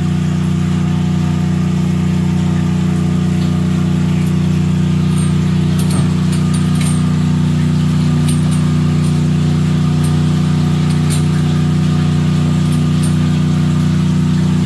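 Engine running steadily at constant speed, an even low hum, with a few faint ticks in the middle.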